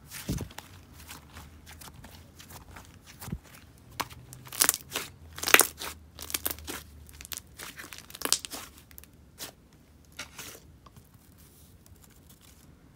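Thick, dense clay slime being stretched, folded and pressed by hand, giving irregular sticky pops and crackles. They are loudest and thickest around the middle and sparser near the end.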